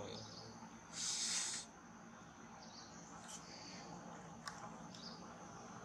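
Tropical forest ambience: a steady high insect drone with a few short faint chirps. About a second in comes a loud hiss lasting under a second.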